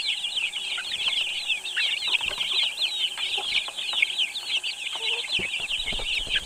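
A large flock of chickens calling, with a dense, continuous chatter of many overlapping high-pitched peeps and a few lower clucks.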